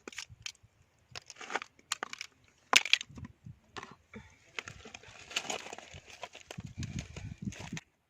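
Oyster shells crunching and clicking in irregular knocks and scrapes as oysters are pried off the rocks and handled.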